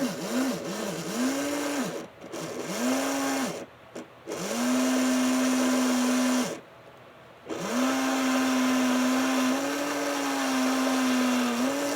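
Model Burlington GP20 locomotive's electric motor and gear drive whining as the power is brought up and cut back in a few short runs, then held steady for a few seconds twice with a short stop between. It runs without a chirp or squeal, a sign that the freshly lubricated gears have quieted down.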